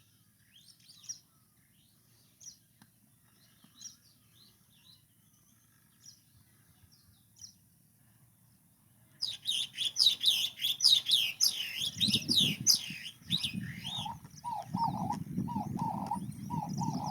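Small birds chirping: faint scattered calls at first, then about nine seconds in a sudden loud, dense chorus of high chirps. Near the end a lower call repeats about twice a second over a low rumbling noise.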